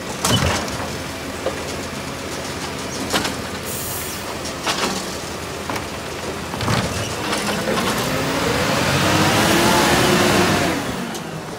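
Volvo side-loader garbage truck's diesel engine running while its automated arm grabs, tips and sets down a wheelie bin, with five or so sharp clunks from the bin and arm. From about halfway the engine rises in pitch and gets louder as the truck pulls away, easing off near the end.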